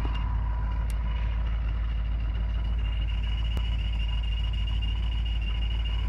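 Supercharged 7-litre Hemi V8 of a Jeep Grand Cherokee SRT8 idling: a deep, even rumble with a steady high whine over it.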